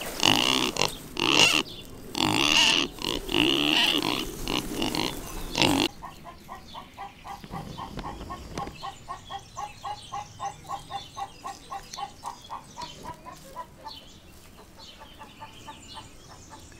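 Two young pigs at a fence making loud, noisy calls in repeated bursts for about six seconds. The pigs then stop suddenly, leaving a quieter, even run of short chirps, about four a second.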